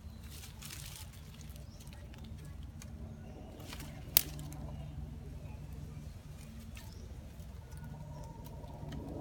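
Long-tailed macaques shifting about in dry twigs and leaf litter: scattered rustles and one sharp click about four seconds in, over a steady low hum.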